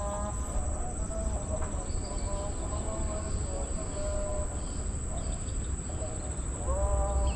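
Steady, high-pitched insect chorus, with wind rumbling on the microphone and a faint, drawn-out wavering melody underneath.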